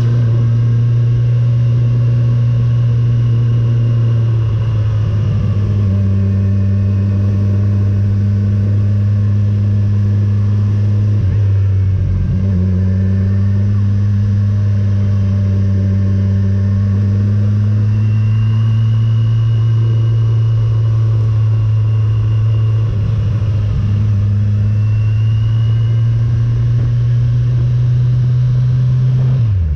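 Motorcycle engine running on the move, a steady low drone whose pitch dips and shifts a few times as the revs change.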